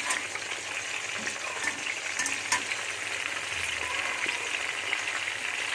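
Stuffed baby brinjals sizzling steadily as they fry in hot oil in a steel kadhai, with a few light clicks of a slotted spoon against the pan as they are turned over.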